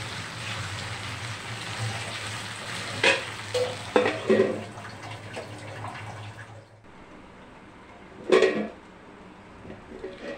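Potato and drumstick curry sizzling in a nonstick pan as its water cooks off, with a few clanks of metal against the pan. The sizzle drops away about two-thirds through, and the loudest clank comes soon after.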